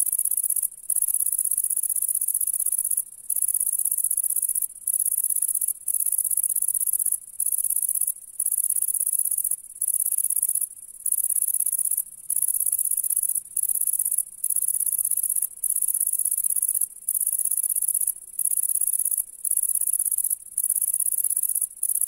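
Bush cricket stridulating: a high, continuous buzzing trill broken by brief pauses at irregular intervals of about one to two seconds.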